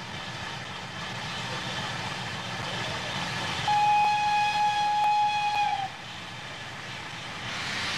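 Steam locomotive whistle sounding one steady blast of about two seconds midway through, over a constant hiss and rumble; a louder hiss of steam rises near the end.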